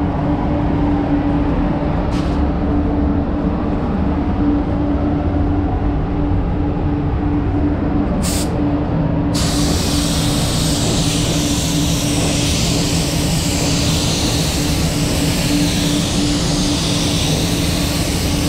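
Steady rumble and hum of a paint booth's ventilation. An Iwata WS400 spray gun spraying clear coat gives two short hisses of air, then a continuous hiss from about halfway through as the painter sprays a pass.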